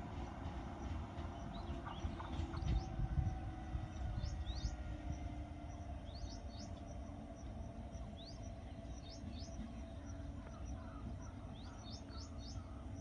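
Small birds chirping in short upward-sweeping calls, two or three at a time, every second or two, over a steady low rumble. The rumble swells briefly about three seconds in.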